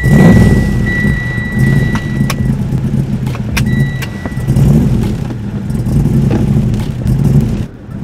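Car engine running with a steady low rumble that swells and eases, heard from inside the cabin. A high steady tone sounds during the first couple of seconds and again briefly around four seconds in, and there are a few sharp clicks.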